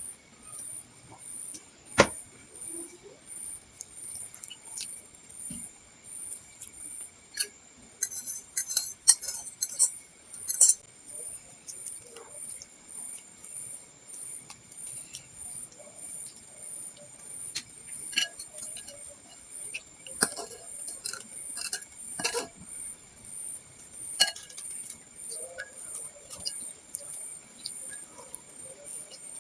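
Spoon and utensils clinking against a bowl now and then, with quieter eating noises in between, while large bakso meatballs in sambal are eaten.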